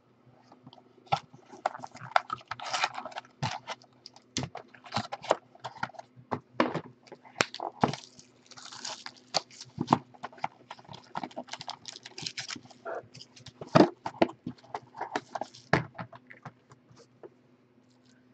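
Foil wrappers crinkling and rustling as trading-card packs and boxes are handled and torn open, with scattered sharp taps and knocks at irregular intervals.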